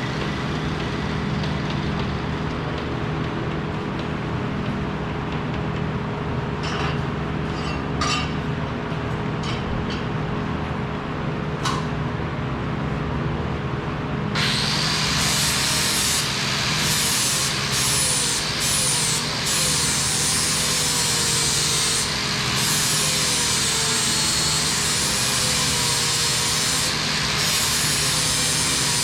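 Steady machinery hum with a few ticks. About halfway in, a power tool working metal starts with a loud hiss that runs on, dropping out briefly a few times.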